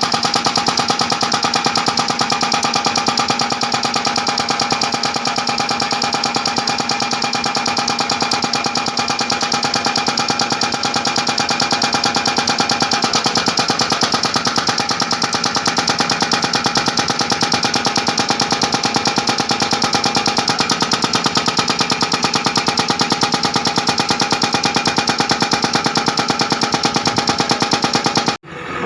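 Backhoe-mounted hydraulic breaker hammering: a rapid, steady stream of blows with a ringing tone over them, cutting off suddenly near the end.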